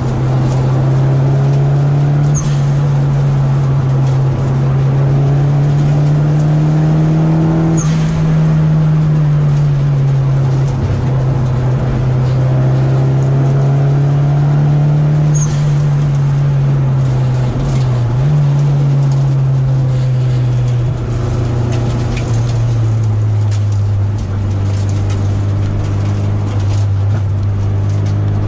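Nissan 200SX's turbocharged four-cylinder engine heard from inside the cabin, pulling at part throttle with a steady drone that slowly rises and eases. It dips briefly twice around the middle and settles to a lower, steady pitch for the last few seconds.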